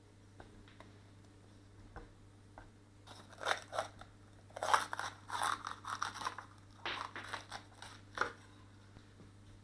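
A 230 mm gyuto chef's knife cuts through a crisp green bell pepper on a wooden board. A run of crunching cuts starts about three seconds in, some in quick succession, and stops a little over a second before the end.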